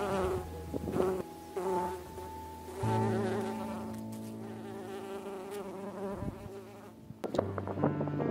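Bees buzzing in flight, the buzz wavering in pitch and loudness as they pass close.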